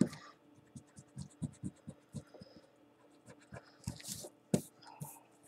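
Hands and a pencil handling a sheet of drawing paper on a tabletop: irregular soft taps and knocks, a couple of sharper thumps, and a brief brushing swish of a hand sweeping across the paper about four seconds in.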